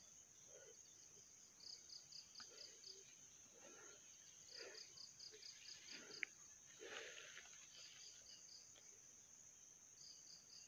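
Faint insects: a steady high buzz, with a chirping trill of about five or six quick pulses repeating every two to three seconds. A single brief sharp click about six seconds in.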